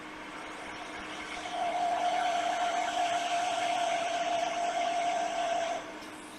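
Hot air rework station blowing: a steady fan whir with an airy hiss, starting about a second and a half in and cutting off near the end, during soldering work on a charging port.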